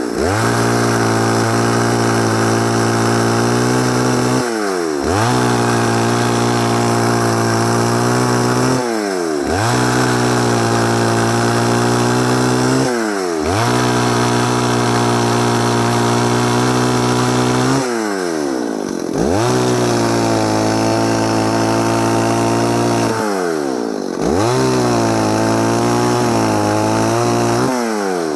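Stihl 038 Magnum two-stroke chainsaw running at high revs while cutting firewood, its engine note dropping sharply and picking back up about every four to five seconds.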